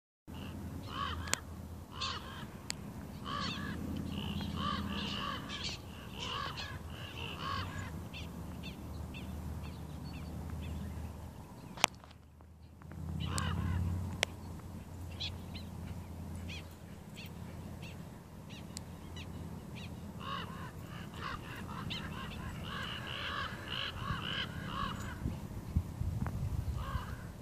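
Prairie dogs giving alarm calls at a dog: many short, sharp barks repeated rapidly, several animals calling over one another in two dense bouts with scattered calls between. A single sharp click sounds about halfway through, over a low steady rumble.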